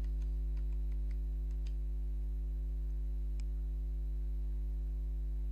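Steady low electrical hum, with faint keyboard clicks over the first two seconds as a short password is typed, and one sharper click a little past three seconds.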